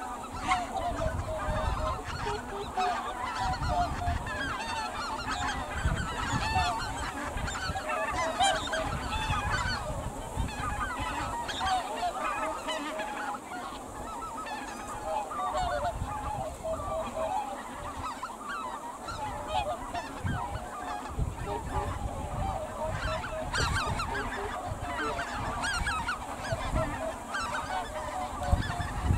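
A mixed flock of greater white-fronted geese and cackling geese calling without pause, many short calls overlapping into a continuous chorus, over a low rumble.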